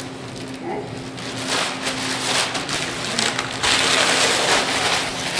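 Scrambled eggs and sausage sizzling in a skillet while a spatula stirs and scrapes the pan, with a louder noisy stretch a little past three and a half seconds in.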